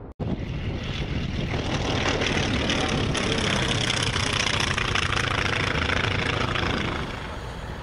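North American T-28 Trojan's radial piston engine and propeller droning steadily as the aircraft flies past, easing off slightly near the end.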